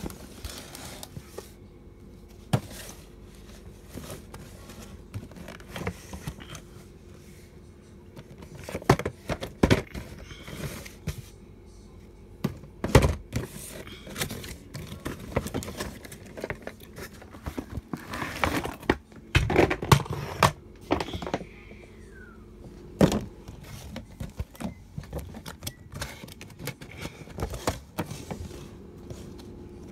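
Cardboard toy box and its plastic packaging being handled and opened: irregular knocks, clicks and scraping, loudest in a few clusters through the middle.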